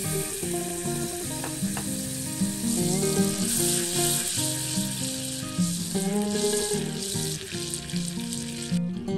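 Butter sizzling and bubbling as it melts in a stainless steel saucepan and is stirred with a wire whisk. The sizzling runs steadily and cuts off suddenly just before the end, over acoustic guitar background music.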